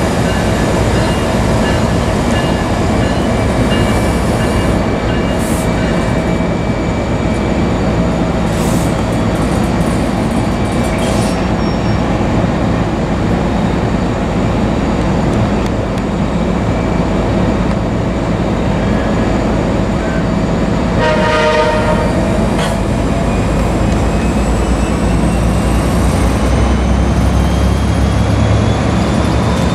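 Loud, steady rumble and rattle of a train passing at speed close by. About two-thirds of the way through, a short horn blast sounds.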